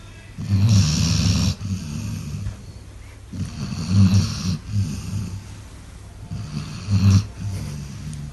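Dog snoring loudly, like a person: a low, fluttering snore with each breath, swelling about every three seconds, with quieter breaths in between.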